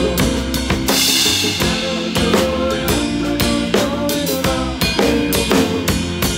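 Drum kit played up close in a live band: a steady beat of snare and bass drum hits, with a cymbal crash about a second in, over the band's other instruments.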